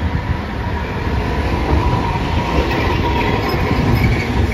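Iyotetsu Moha 50-type streetcar running along street track and passing close by. The rumble of wheels on rail grows louder as it nears, with a steady tone underneath and a few short wheel squeaks in the second half.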